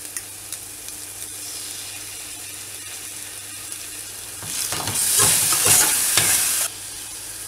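Onion and ginger-garlic paste sizzling softly in oil in a small stainless saucepan. About four and a half seconds in, a spoon stirs the freshly added tomato ketchup through it, giving about two seconds of louder scraping and sizzling that stops suddenly.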